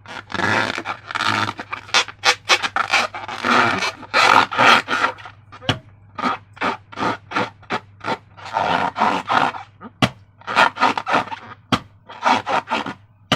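Slime being squeezed and kneaded by hand: a quick, irregular run of squishing and scraping sounds.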